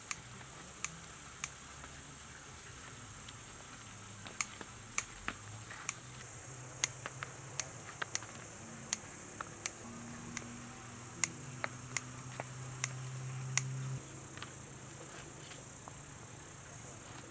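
A steady high chirring of crickets, with a string of sharp, irregular snips from household scissors cutting succulent stems through the first fourteen seconds. A low hum swells and then cuts off about fourteen seconds in.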